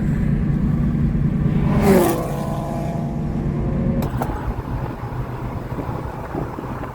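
Car engine and road noise heard from inside the moving car, a steady low drone with a brief louder swell about two seconds in. About four seconds in there is a sharp click and the drone drops to a quieter, rougher road noise.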